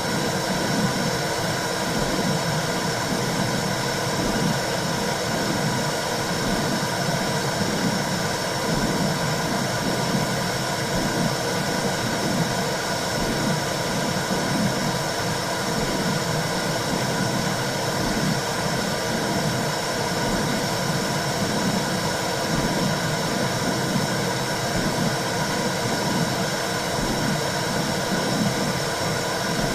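Womb sound for soothing a baby: a steady whooshing noise with a low, rhythmic throbbing pulse beneath it, like blood flow and a heartbeat heard from inside the womb.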